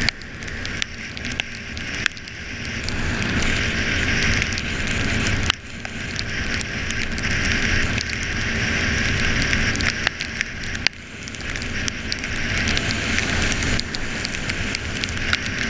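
Yamaha Factor 125 motorcycle being ridden in heavy rain: a loud, steady rush of wind and rain over the engine's low rumble, with scattered crackles. The rush drops away sharply twice and builds back up each time.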